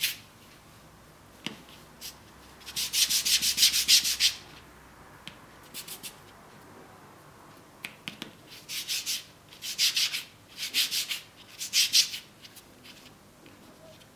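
Hands rolling and smoothing a piece of fondant between palms and fingers: runs of quick rubbing strokes, one run about three seconds in and four short bursts in the second half, to work out lines in the paste.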